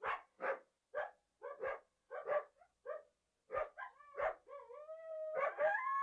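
Coyote barking in a string of short, sharp barks, about two a second, then breaking into a wavering howl that rises and is held near the end.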